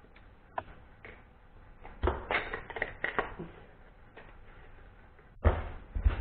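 Handling noise on a workbench as a metal drift is set down and a scooter wheel is lifted and moved. There is a clatter of several knocks about two seconds in, then two heavy knocks near the end.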